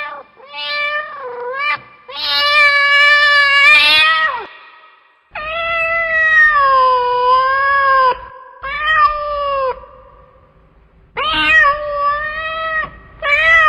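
A cat meowing loudly in a series of about six long, drawn-out calls, some lasting two to three seconds, each wavering in pitch.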